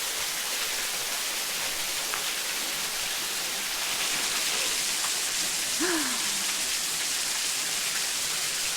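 Waterfall rushing steadily, an even splashing hiss of falling water.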